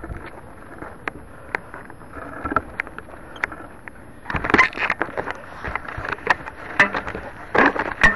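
Handling noise from fingers gripping and rubbing right over a small onboard camera's microphone: scattered clicks and scrapes, with louder bursts of rubbing about four and a half seconds in and again near the end.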